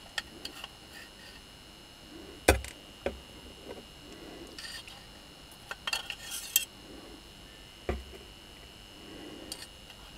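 Hand tool knocking and clicking against the metal frame of a washing-machine motor while working at the brush holder: a few sharp knocks, the loudest about two and a half seconds in, and a quick run of small metallic clicks around six seconds.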